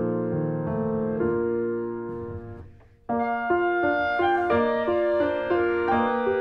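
Background piano music. The first tune fades out almost to silence about halfway through, and a new, quicker piano tune starts abruptly.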